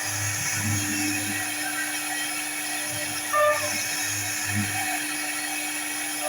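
CNC router spindle running with a steady high whine, over a low pulsing hum.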